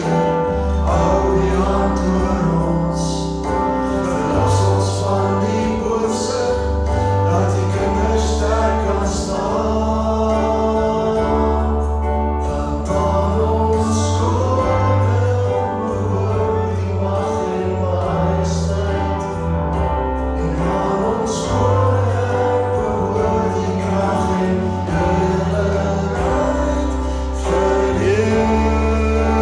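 Afrikaans worship song: voices singing the melody over musical accompaniment with sustained bass notes.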